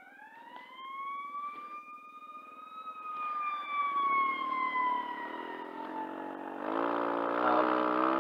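Ambulance siren wailing, one slow sweep up in pitch and back down. About two-thirds of the way in, a vehicle engine comes in louder and picks up revs.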